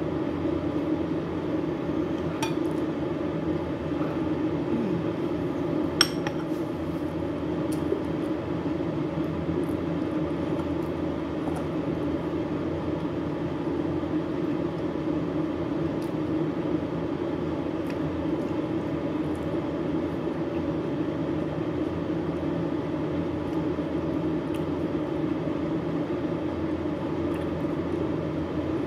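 Steady mechanical hum from a running household appliance such as a fan, with a few sharp clinks of a metal spoon against a ceramic bowl and plate while eating, the clearest about six seconds in.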